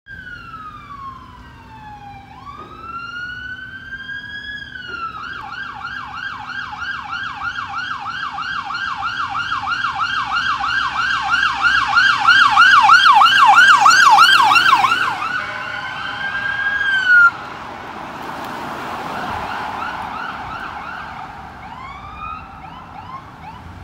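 Electronic emergency-vehicle siren: a slow wail falling and rising, then switching to a rapid yelp that grows louder as the vehicle approaches and passes. A short loud blast follows, then the rush of the passing vehicle, and short siren chirps near the end.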